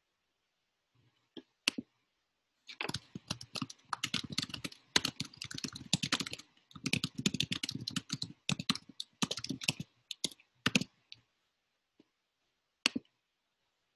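Typing on a computer keyboard: a few single keystrokes, then a rapid run of key clicks lasting about eight seconds, and one last click near the end.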